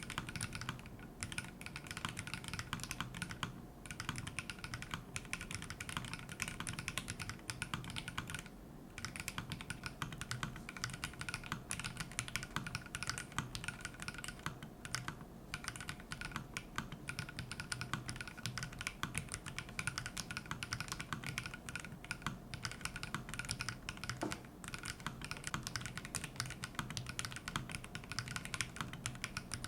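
Continuous fast typing on a custom 60% mechanical keyboard with Phynikeys CHU switches, a stainless steel plate, no foam and FBB 464 keycaps: a dense stream of key clacks, with short pauses about a second in, around three and a half seconds, nine seconds and fifteen seconds.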